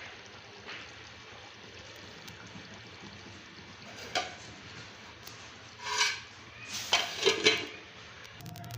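Faint steady watery hiss of liquid in the cooking, broken by sharp clatters: one about four seconds in, one about six seconds in, and a quick run of them near the end.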